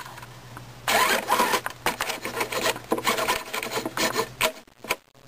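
Old lawn mower's small engine being turned over with its pull-start cord, a rasping mechanical cranking that starts about a second in and lasts a few seconds: the long-idle engine is not seized.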